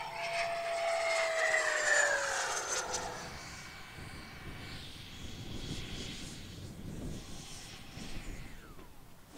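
Electric ducted fan of a Freewing Avanti EDF sport jet whining, its pitch falling over the first three seconds as it passes. It then runs fainter and rougher as the jet comes in low to land, with a short falling whine near the end.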